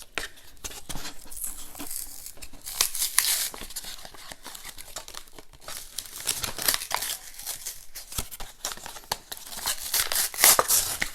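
Plastic-and-card blister pack being worked open by hand: irregular crinkling, tearing and cracking of the stiff plastic, with louder bursts about three seconds in and near the end.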